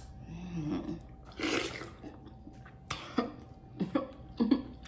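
Close-up eating mouth sounds: a short hummed "mm", a slurp about a second and a half in, then several wet lip smacks over the last two seconds.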